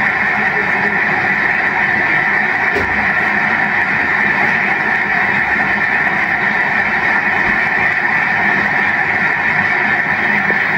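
Steady applause from a large audience, heard through a television's speaker.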